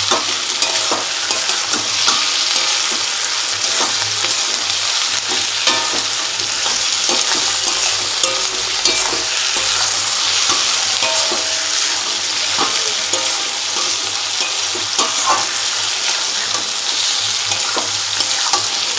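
Sliced onions and tomato pieces sizzling in hot oil in a metal kadai, stirred with a wooden spatula that scrapes and knocks against the pan again and again.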